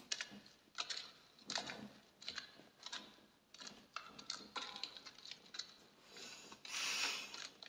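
Irregular light taps and clicks, about one or two a second, with a brief rustling hiss near the end.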